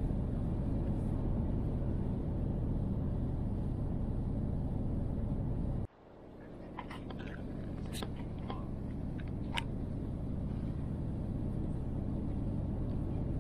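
Steady low cabin rumble inside an Airbus A350 airliner on its approach to land. About six seconds in, the sound cuts out abruptly and fades back in, with a few faint clicks and ticks as it returns.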